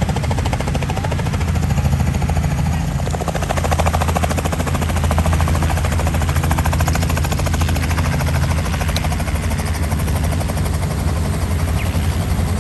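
Helicopter running close by: a fast, steady chop of the rotor blades over a continuous low engine drone.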